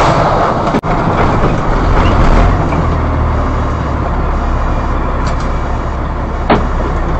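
Road and engine noise of a car slowing down, picked up by a dashcam mic inside the cabin, with a steady low hum from about halfway through. There is a brief dropout about a second in and a single click near the end.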